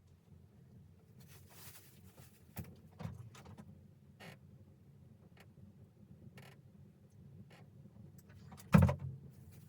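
Quiet handling noises of light rustles and a few soft knocks, then one loud, heavy thump near the end.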